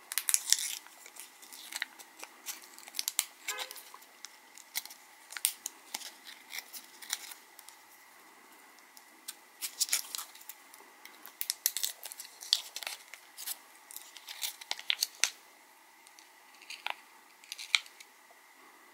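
Foil pouch of a LiPo battery cell being peeled and torn off by hand, crinkling and crackling in irregular bursts with short pauses between.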